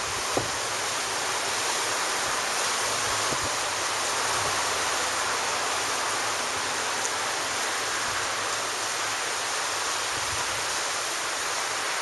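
Ocean surf breaking on the beach, a steady even rush of waves.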